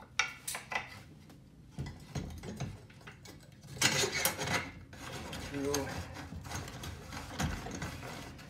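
Metal clicks and scraping as a Maxle thru-axle is slid through a bicycle fork's dropouts and an aluminium wheel-off fork mount and threaded in by hand. The loudest part is a rasping scrape about four seconds in.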